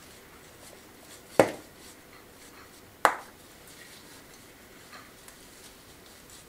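Two sharp clinks of a hand tool striking stone, about a second and a half apart, each with a short ring, while mortar is worked around the stones of a rubble-stone pillar; a faint tick follows later.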